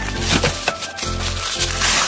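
Background music with a steady bass beat, over packing paper rustling and crinkling as wrapped wooden dollhouse pieces are pulled out of a cardboard box. The crinkling is loudest near the end.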